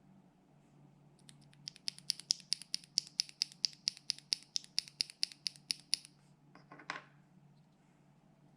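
A loose Alpaca linear mechanical keyboard switch, out of the board, pressed and released rapidly. It gives a fast, even run of sharp clacks, about five a second for nearly five seconds, then one brief scrape.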